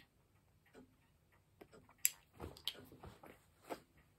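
Faint clicks and soft puffs as a tobacco pipe is drawn on while being lit with a lighter, the sharpest click about two seconds in.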